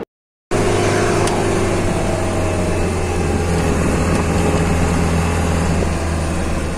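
Bus engine running steadily under way, a low, even drone with road noise, heard inside the driver's cab; it cuts in about half a second in.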